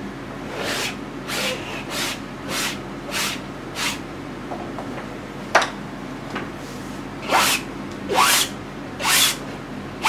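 Quick scraping strokes of a painting tool across a canvas as oil paint is laid on: about six short strokes in the first four seconds, a sharp click about halfway, then three longer, louder strokes near the end.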